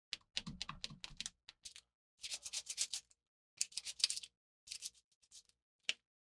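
Hand-tool work on small metal parts: a quick run of light clicks and taps, then three short scraping strokes and a final click.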